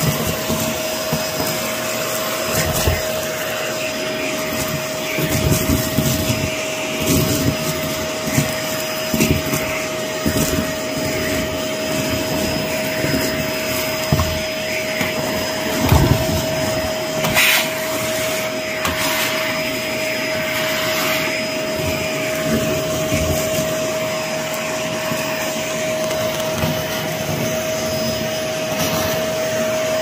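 Vacuum cleaner running steadily with a constant motor whine as its wand sucks torn wallpaper scraps off a carpet. The pieces rattle and crackle up the tube in irregular clatters, most often in the first half, and fewer come once the floor is nearly clear.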